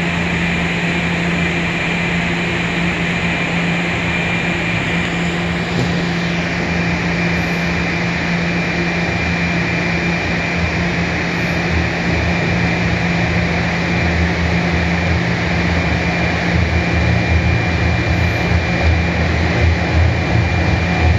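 Toronto Rocket subway train approaching through the tunnel toward the platform: a steady rushing rumble over a constant hum, the low rumble growing louder over the last few seconds as the train nears.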